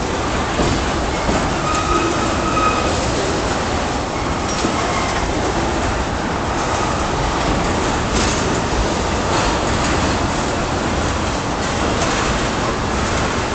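Freight train of tank cars rolling steadily past: the continuous rumble and clatter of steel wheels on the rails. Faint high wheel squeals sound twice in the first five seconds as the cars take the curve.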